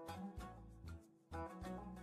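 Instrumental background music with a steady beat, briefly dropping away just after a second in before it picks up again.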